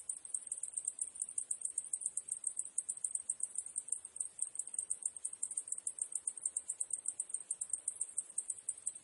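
Cicadas calling in a continuous high-pitched chorus, pulsing in fast, even beats.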